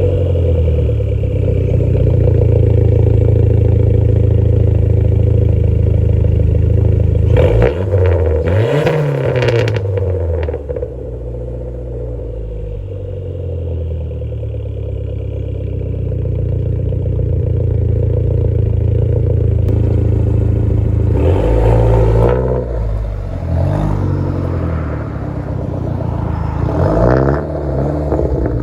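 Dodge Neon SRT-4's turbocharged 2.4-litre four-cylinder engine running steadily, then revved about eight seconds in, the pitch falling back as it drops to idle. A series of further revs comes in the last third.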